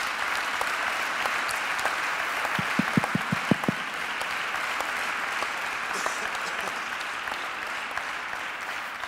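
Audience applauding steadily, with a quick run of louder claps close by around three seconds in, easing off slightly near the end.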